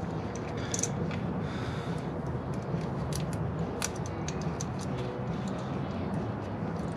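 Scattered small clicks and snips of pliers or crimpers working a wire terminal at a car battery, over a steady low hum.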